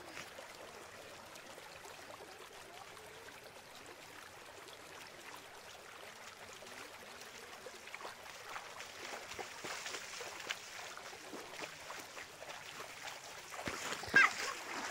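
Muddy floodwater running over a dirt path, a faint steady rush, with splashing footsteps wading through the shallow water that grow louder and more frequent in the second half.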